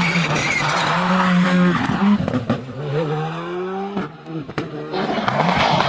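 A rally car's engine running hard, its note dropping and climbing again with gear changes and throttle. Underneath is the hiss of the tyres sliding on the surface. About four seconds in the engine note briefly falls away, with a couple of sharp cracks, then climbs again near the end.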